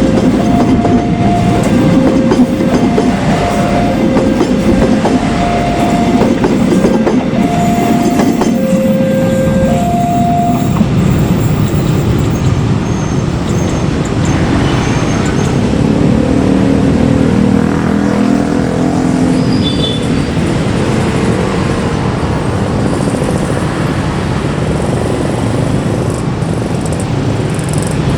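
Level-crossing warning alarm sounding a two-note high–low tone over and over for about the first 11 seconds. Then a Prameks diesel railcar train passes over the crossing with a loud rumble and clacking wheels.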